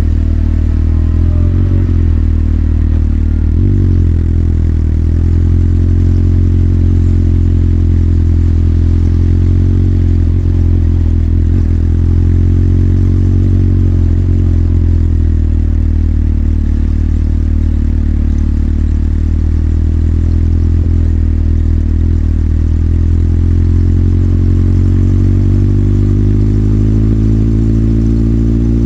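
Motorcycle engine running at low, fairly steady revs, heard from the rider's seat, with small dips and a slight rise in pitch near the end.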